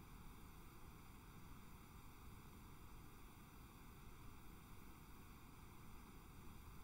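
Near silence: a faint, steady hiss from the recording's noise floor.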